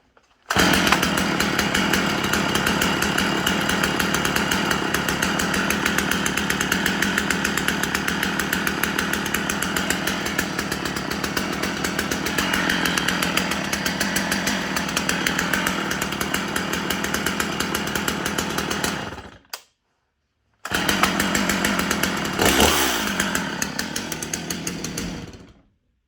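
Two-stroke chainsaw engine running steadily. The sound breaks off for about a second, then the saw runs again with one brief rev that falls away, and it stops abruptly near the end.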